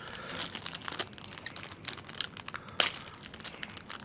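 Crackly snack-cookie packaging crinkling as it is torn open by hand: a rapid run of crackles, with one sharper, louder snap near the end.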